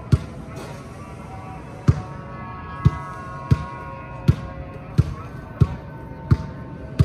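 A basketball being dribbled: about nine sharp bounces in a steady rhythm, roughly one every 0.7 seconds, over background music with held tones.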